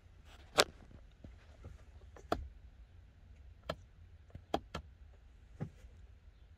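About six short, sharp clicks and taps spread over a few seconds as a finger presses and handles the power knob of a Thermo King APU's in-cab control panel, over a low steady hum.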